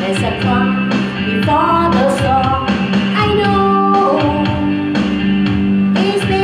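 A woman singing into a microphone over a rock backing track with guitar and a steady bass note.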